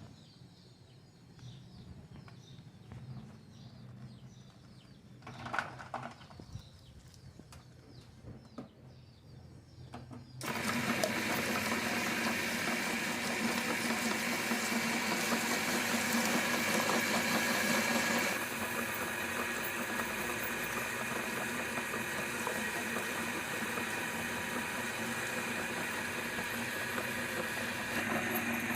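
Electric meat grinder switched on about a third of the way in and running steadily, grinding chillies; its hum shifts slightly a little past halfway. Before it starts, a few faint knocks and handling sounds.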